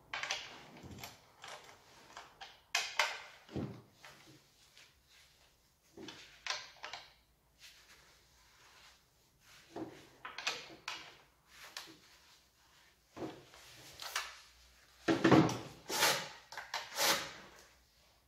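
Irregular knocks, clicks and scrapes of chainsaw parts and packaging being handled during unboxing and assembly, with a louder cluster of knocks about fifteen to seventeen seconds in.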